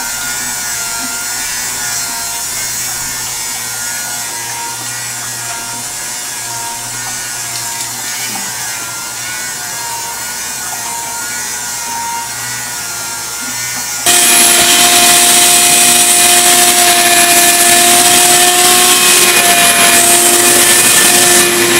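A steady machine noise with a motor hum whose pitch wavers slightly. About 14 seconds in it suddenly becomes much louder, with a strong steady whine.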